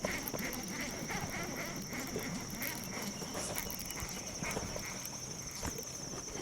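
Insects calling in a steady high-pitched drone, with a softer, regularly pulsing call beneath it that fades out about halfway through.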